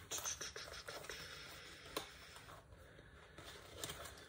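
Faint rustling and light ticks of fabric pieces being rummaged through and handled, with one sharper click about two seconds in.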